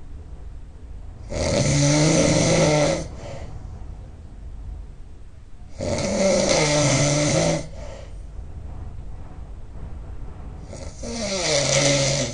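A person snoring really loud: three long snores roughly four and a half seconds apart, each lasting about a second and a half.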